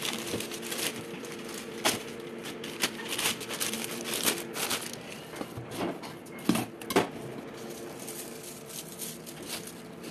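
Parcel packaging being handled and opened by hand: a plastic courier mailer and a cardboard box rustling, crinkling and tearing, with a few sharper cracks about two-thirds of the way in.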